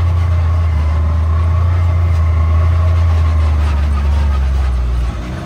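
A vehicle engine running steadily at a constant speed, a low, even drone that dips in level shortly before the end.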